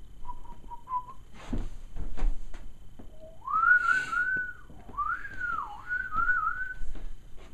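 Someone whistling a short, wavering tune, with a couple of sharp knocks between the first notes and the longer gliding phrase.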